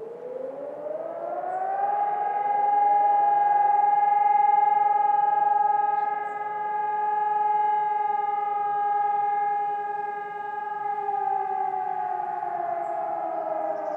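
HELIN electronic civil-defence sirens sounding a test alarm. The tone rises over about two seconds, holds steady for about nine seconds, then starts to fall away near the end. Several sirens overlap, their rises slightly staggered.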